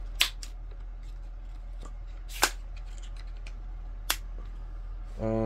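Sharp clicks and clacks from an AR-15 rifle being handled, as its parts such as the Magpul stock are worked: four or so spaced over several seconds, the loudest about two and a half seconds in, over a steady low hum.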